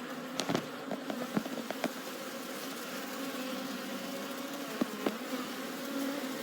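Honey bees buzzing at an open hive: a steady, many-voiced hum. A few light clicks and knocks come in the first two seconds and twice more about five seconds in.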